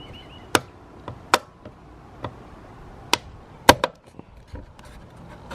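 Sharp plastic clicks and knocks, about four loud ones and several fainter, the loudest near the end, as the side mirror glass is pried by hand off its retaining clips.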